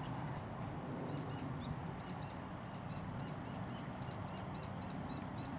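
A bird calling a fast, even series of short high chirps, about five a second, starting about a second in, over a steady low rumble.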